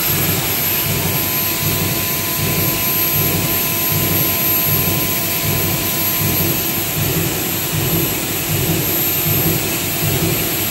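Steady, loud rush of industrial machinery on a PP meltblown filter production line, with a thin, high, steady whine over it and an uneven low throb beneath.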